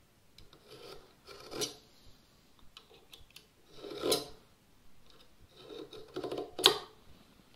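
Marking knife drawn along a square across the grain of a softwood 2x4 bench leg, scoring a knife line for a crosscut: a few light scratching strokes, three of them louder and about two and a half seconds apart, the last the loudest.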